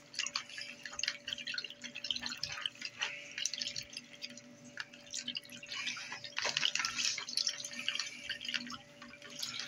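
Silicone whisk beating mayonnaise into lime juice in a plastic bowl, with quick, irregular wet clicking and slopping.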